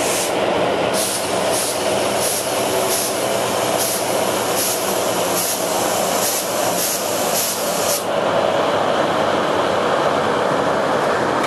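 Passenger train cars rolling past close by, a steady rumbling rush of wheels on rail, with a run of sharp high clicks about twice a second that stops about eight seconds in.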